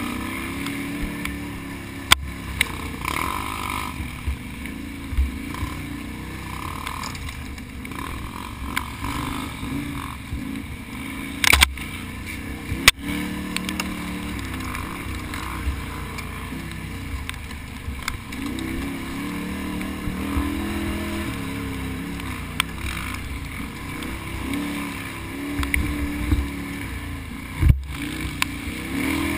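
Can-Am Outlander ATV engine running at race pace, its revs rising and falling over and over, with a few sharp knocks scattered through.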